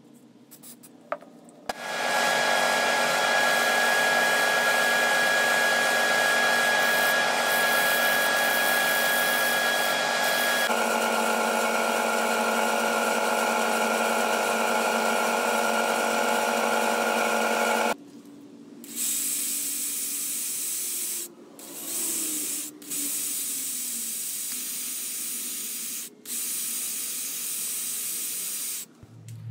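A Grizzly wood lathe runs steadily, spinning a walnut bowl that is being sanded, and its tone changes about ten seconds in. From about eighteen seconds a cordless drill with a sanding pad runs in several short spurts, with a higher whine, against the spinning bowl.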